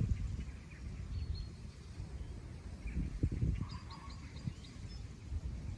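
Low wind rumble on the microphone in an open outdoor arena, with a few soft thumps about halfway through and faint bird chirps.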